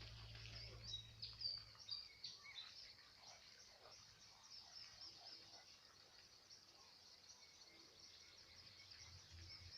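Near silence: quiet ambience with faint, high bird chirps over the first couple of seconds, and a low hum at the start and again near the end.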